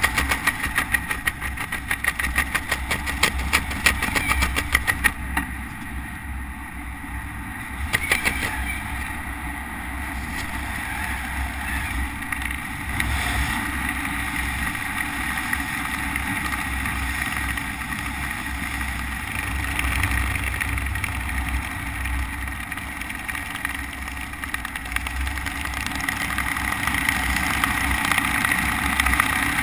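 Wind rushing and buffeting over a helmet-mounted camera's microphone in freefall, easing about five seconds in to a steadier, quieter wind noise under an open parachute canopy, which grows louder again near the end.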